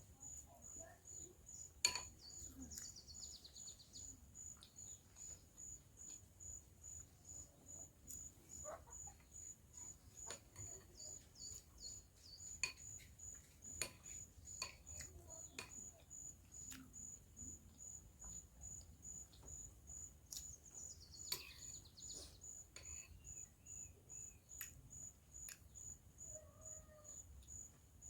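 Cricket chirping steadily in a high, evenly pulsed trill, about two chirps a second, with scattered faint clicks and taps of eating.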